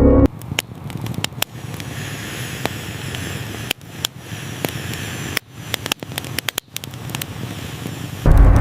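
Campfire crackling, with scattered sharp pops and snaps over a soft hiss. Background music cuts out just after the start and comes back near the end.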